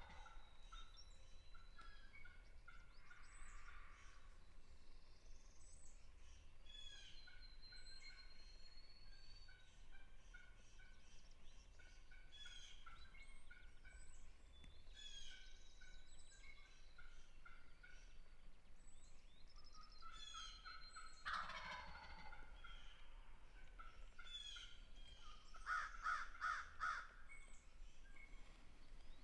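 A wild turkey gobbling faintly, a rapid rattling call heard most strongly near the end, with another burst a few seconds before. Songbirds chirp and whistle throughout.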